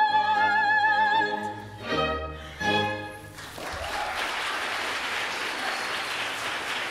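A soprano holds a high final note with vibrato over the orchestra, the orchestra closes with two short chords about two and three seconds in, and then the audience applauds.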